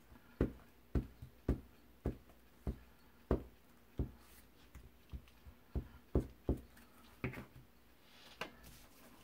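Glue stick being rubbed across a sheet of paper on a cutting mat, each stroke making a short knock, about two a second. Near the end there is a soft paper rustle as the glued piece is handled.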